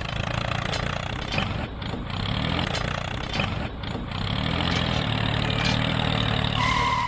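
Miniature DIY toy tractor running steadily as it drives, an engine-like rattle. A short high tone sounds near the end.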